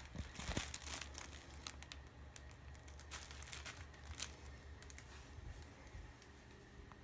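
Rustling and crinkling of a kitten's play tunnel as the kitten scrambles and slides about inside it, in quick irregular crackles that are busiest in the first second or so and thin out after.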